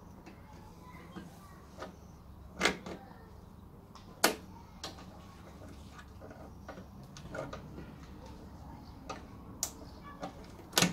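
Scattered metal clicks and knocks of pliers and a handbrake cable against a steel Classic Mini rear subframe as the cable is worked through its guide, with two sharper knocks in the first half.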